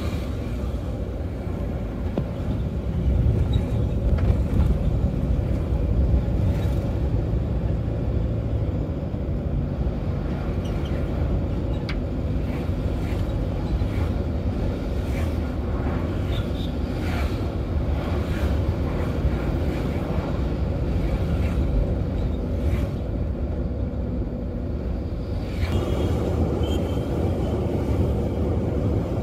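Road traffic noise: a steady low rumble of passing vehicles, with a few short sharper sounds over it, changing character near the end.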